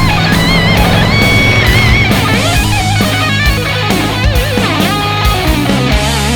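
Rock music: an electric guitar lead playing bent, wavering notes over a steady bass and drums.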